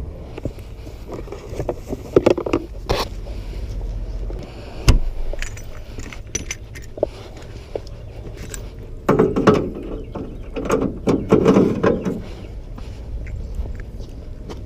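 Scattered knocks and rattles from handling a kayak and its gear in the bed of a pickup truck, over a low outdoor rumble; the sharpest knock comes about five seconds in.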